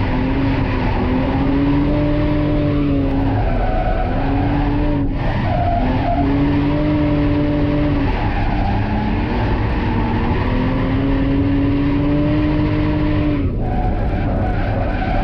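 BMW E46 328Ci's straight-six engine running at high revs during drift runs, its pitch dropping and climbing back several times as the throttle is lifted and reapplied, over tyre skidding.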